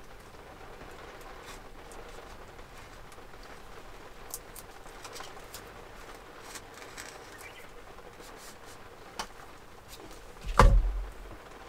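Steady patter of heavy rain on the camper, with small scattered clicks of a knife cutting around an avocado's pit. One dull thump about ten and a half seconds in is the loudest sound.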